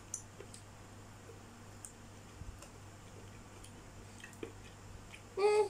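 Faint scattered clicks and small wet smacks while orange segments are handled and sucked, then near the end a short, high-pitched whine from a baby.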